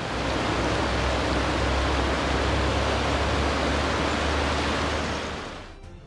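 Whitewater of the Animas River rapids rushing: a steady, even noise of moving water that fades in at the start and fades out near the end.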